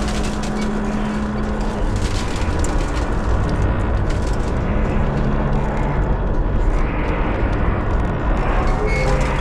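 Tower crane's steel structure creaking and grinding over a steady low rumble, with a low hum that starts and stops twice.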